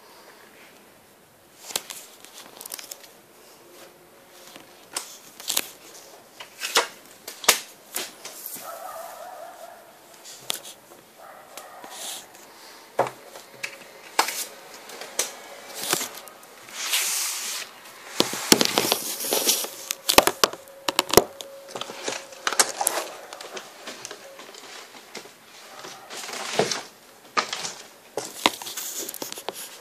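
Trading cards being handled close to the microphone: irregular clicks, rustles and short crinkling scrapes, busier and louder from about halfway through.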